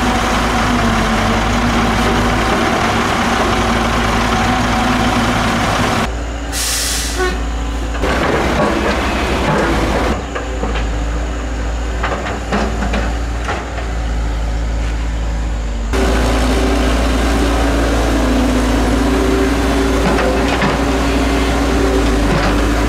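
Diesel engines of a Cat hydraulic excavator and a dump truck running steadily during digging and loading. About six seconds in there is a short hiss of air, and for several seconds in the middle the engine noise is quieter, with scattered clicks, before it comes back loud.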